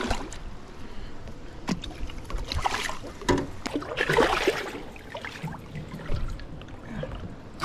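Creek water splashing and sloshing, swelling twice, with a couple of sharp knocks.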